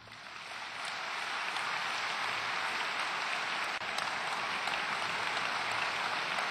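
A large audience applauding, the clapping swelling over the first second and then holding steady.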